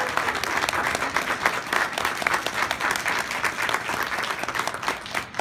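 Audience applauding, many hands clapping densely and thinning out near the end.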